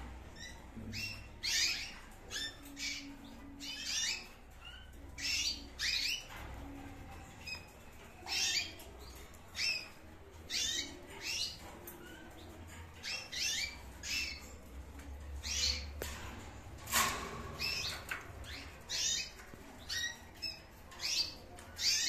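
Green-cheeked conures calling with short, high-pitched chirps, repeated about once a second. One louder call comes about 17 seconds in.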